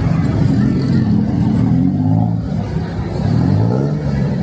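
Road vehicle engine running in street traffic, its pitch sliding up and down as it revs, rising around three seconds in.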